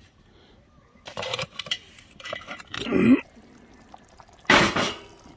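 A coal-covered cast-iron Dutch oven lid being lifted off the pot: a few bursts of metal scraping and rustling ash, the loudest near the end.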